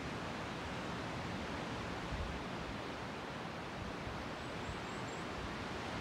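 Sea surf washing steadily at the shore, with low gusty wind rumble on the microphone. Three faint, short, high chirps come near the end.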